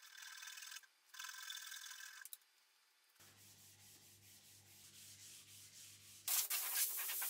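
Fine-toothed flush-cut hand saw cutting through a wooden leg end in two short runs of quick strokes. Then abrasive paper is rubbed over the freshly sawn end. The rubbing is quiet at first and turns loud and fast about six seconds in.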